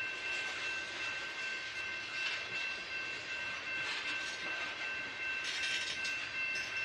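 Freight train cars rolling past on the rails: steady rumbling clatter of wheels over track, with a steady high-pitched squeal running underneath.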